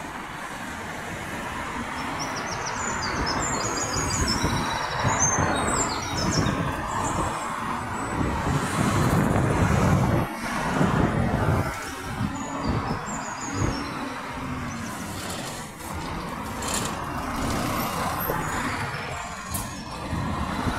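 Road traffic passing close by: cars and a van drive past one after another, tyre and engine noise swelling and fading. Small birds chirp about two to six seconds in.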